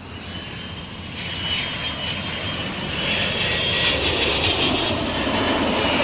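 Yamaha YBR 125 motorcycle at highway speed: wind rushing over the microphone with the small single-cylinder engine running underneath, fading in and growing louder over the first few seconds.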